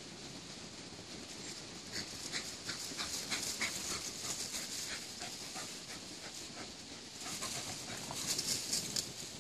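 Small dogs panting as they run and tussle through dry fallen leaves, their paws rustling and crunching the leaves in quick strokes, loudest from about two seconds in and again near the end.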